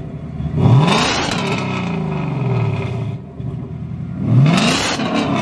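2020 Mustang GT's 5.0 V8 blipped twice from idle through its quad exhaust tips. Each rev climbs quickly in pitch, then falls slowly back toward idle.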